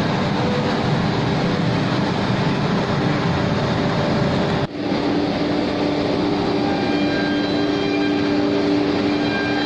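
A CNC router's 7.5 kW spindle cutting plywood: a steady noisy hum with a held whine. It breaks off for an instant about halfway and resumes with a slightly different, stronger whine.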